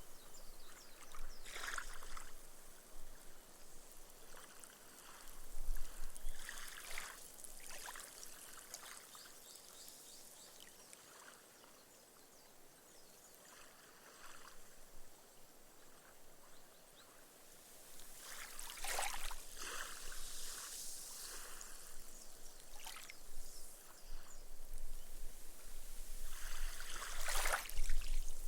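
Small, gentle ripple waves washing up a sandy beach and soaking into the sand, the foam fizzing away as it drains. A few soft washes come and go, with a quieter lull in the middle.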